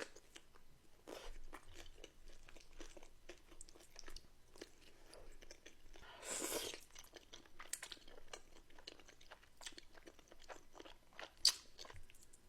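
Close-miked chewing and crunching of a bowl of buldak ramen with pot stickers, with many small wet mouth clicks throughout and a short louder rush of noise about halfway through.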